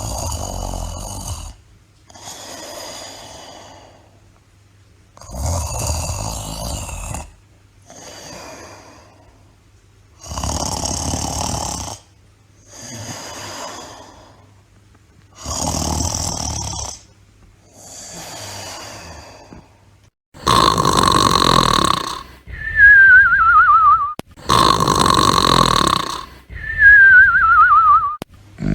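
Snoring in a slow, even rhythm: four rounds of a loud snoring breath in and a softer breath out, each round about five seconds long. About twenty seconds in, the snores turn louder, and each of the two that follow is answered by a falling, wavering whistle, the classic cartoon snore-and-whistle.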